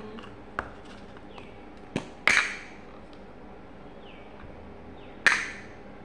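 Plastic modelling-dough tubs and their snap-on lids being handled and set down on a hard table: four sharp plastic clicks and knocks, the loudest about two and a quarter and five seconds in.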